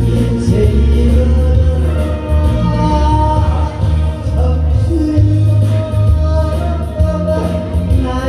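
Loud music with a singing voice over it, held notes over a steady heavy bass.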